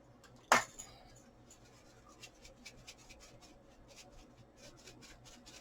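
A sharp click about half a second in, then a long run of faint, quick ticks and light rustling, the sound of dried Italian seasoning being shaken from a spice jar.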